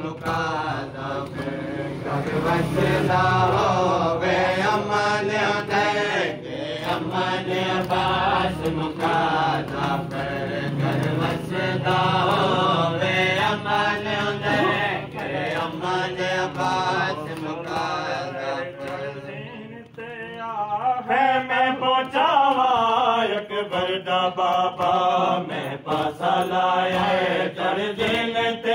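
A group of men chanting a devotional recitation together in unison, in repeating rising-and-falling phrases with light rhythmic beats. The voices break off briefly about twenty seconds in, then start again.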